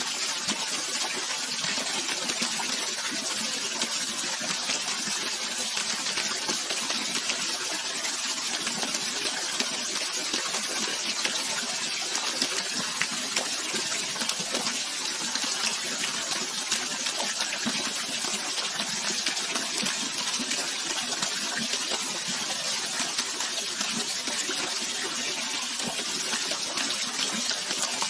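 Steady, unbroken rush of flowing water, mostly a high hiss with little low rumble.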